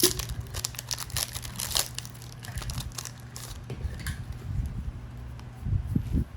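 Booster pack wrappers crinkling and tearing as trading card packs are opened, a dense run of sharp crackles that thins out after a few seconds, with a few low thumps near the end.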